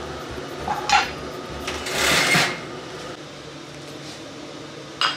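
Kitchenware handling: a grill pan and plate clattering, with a sharp clank about a second in, a brief loud scraping hiss about two seconds in, and a click near the end, over a steady low hum.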